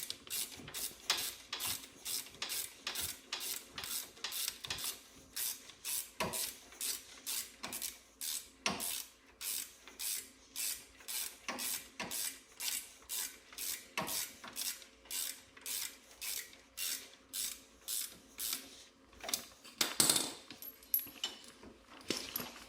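Hand ratchet wrench turning bolts, clicking in steady back-and-forth strokes about two a second. A few louder knocks come near the end, then the clicking stops.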